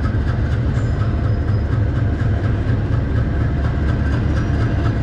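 Diesel locomotive moving slowly past, its engine running steadily with a deep, even drone.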